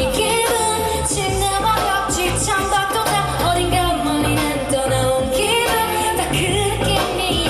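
A pop band played live, with singing over a steady, heavy bass line.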